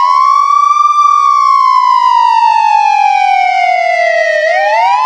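Police siren wailing: one slow wail that climbs to its peak about a second in, glides slowly down over the next few seconds, and starts climbing again near the end.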